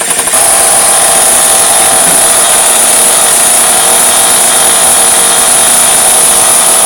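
Small high-revving engine of a radio-controlled buggy, a .28 nitro motor, starting up suddenly and holding a loud, steady, high-pitched whine.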